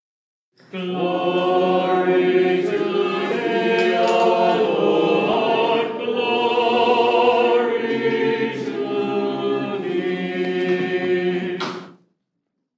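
A cappella choir singing an Orthodox liturgical chant in long sustained phrases, breaking off shortly before the end.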